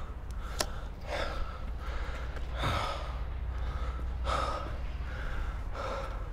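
A longboarder breathing hard, one breath about every second and a half, over the steady low rumble of longboard wheels rolling on pavement. A couple of sharp clicks come in the first second.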